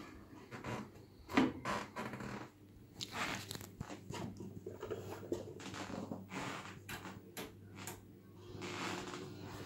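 Irregular scraping, rubbing and clicking as a homemade turntable, an empty plastic 3D-printer filament spool topped with an MDF board, is turned and handled by hand. The loudest knock comes about one and a half seconds in.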